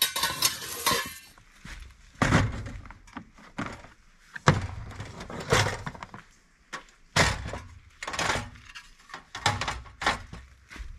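Camp cookware being handled: metal pots, a pan and lids knocked, clanked and set down, with a portable gas stove placed on a table, giving a series of separate knocks and clatters about every second.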